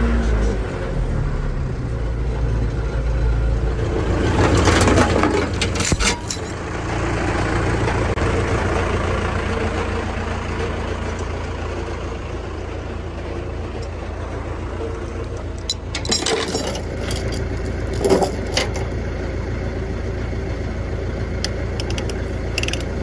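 A vehicle engine running steadily, with a louder swell of noise about five seconds in and metallic clinks and rattles in the second half.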